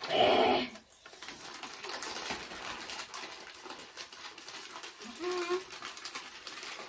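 Potato-chip bags rustling and crinkling, and chips being crunched as people eat. A short loud vocal outburst comes right at the start, and a brief hum-like vocal sound about five seconds in.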